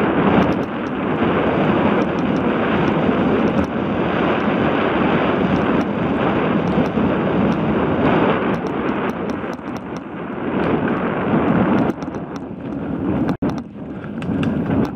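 Wind rushing over a helmet-mounted camera's microphone and tyre noise as a 29er hardtail mountain bike is ridden fast along a dirt singletrack. From about halfway, quick rattling clicks from the bike over the bumps are added, and the sound cuts out for an instant near the end.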